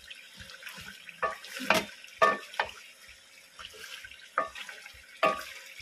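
Black ladle scraping and knocking against an aluminium cooking pot while chicken curry is stirred, several irregular knocks, some leaving the pot ringing briefly. Underneath, a steady sizzle of the curry frying.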